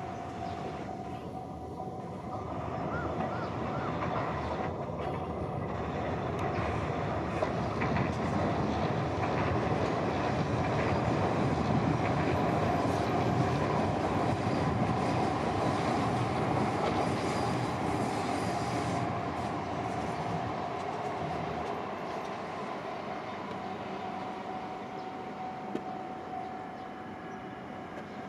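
JR East E3 series 2000 Shinkansen train running past, its rail noise building up to a peak about halfway through and then fading away.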